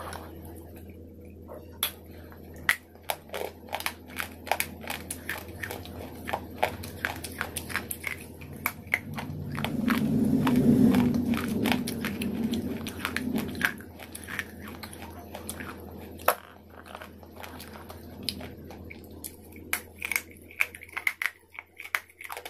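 Close-up biting and chewing of hard white chalk-like sticks: many sharp, crisp crunches and snaps, with a louder stretch of dense crunching chewing in the middle. A faint steady low hum runs underneath.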